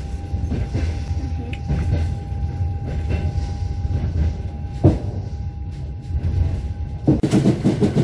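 Moving train running along the rails: a steady low rumble with a thin steady whine over it. There is a single sharp knock about five seconds in, and the sound turns louder and busier near the end.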